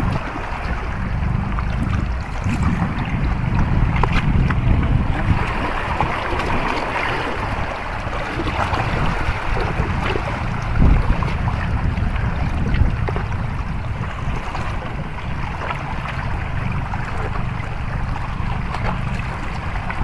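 Wind buffeting the microphone over the steady wash of sea waves against shoreline rocks.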